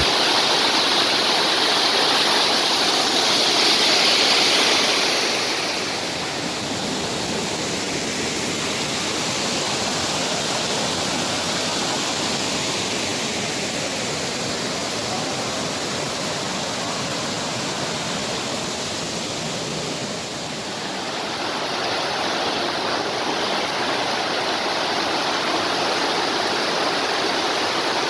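Steady rushing and splashing of water falling at a waterfall, a little louder for the first few seconds and then even.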